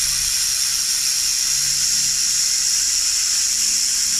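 Handheld fiber laser welder running a weld on steel, its nitrogen shielding gas hissing steadily out of the nozzle.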